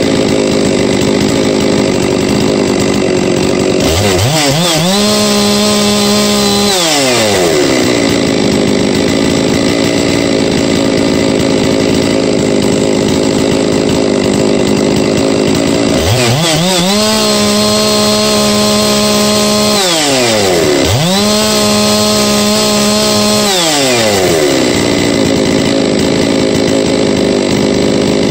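Rebuilt Huztl-based MS660-clone two-stroke chainsaw idling, then revved up to full throttle three times with the bar out of the wood. Each rev is held steady for two or three seconds before dropping back to idle, as the carburettor is given its initial tune after a new piston.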